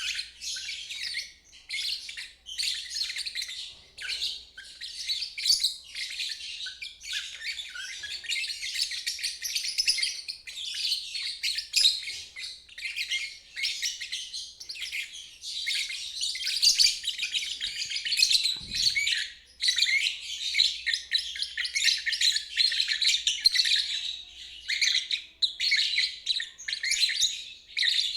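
Lovebird singing in ngeriwik style: a continuous, shrill, rapid chattering twitter with brief pauses.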